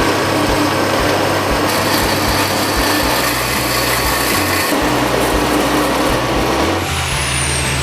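Power tool working on steel: a steady, harsh grinding noise whose pitch and character change about seven seconds in.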